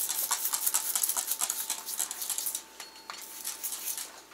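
Soapy water squirted from a bottle onto a dirt-bike tire bead and rim in many quick short spritzes. The spritzing thins out about two and a half seconds in, with a few more spritzes after that.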